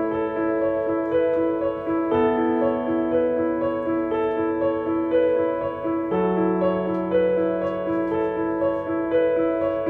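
Background piano music: a repeating pattern of notes over low notes that change about every four seconds.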